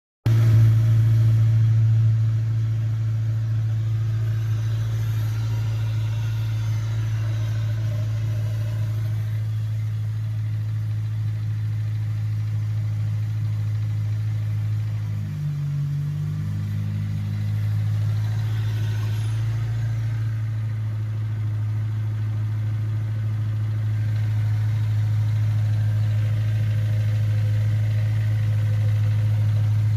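Honda S2000 four-cylinder engine idling steadily, with a brief rise in engine speed about halfway through. The owner suspects a fault, possibly rod knock or a rattling timing chain tensioner.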